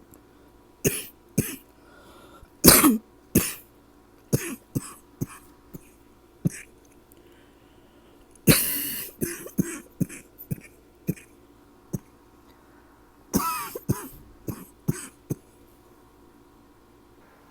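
A person coughing in several bouts of short coughs with pauses between, the longest bout around the middle: a persistent tickly cough that will not go away.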